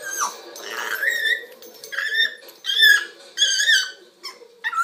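African grey parrot making a run of about five short whistled calls, each bending up and then down in pitch, about a second apart. A steady low hum runs underneath.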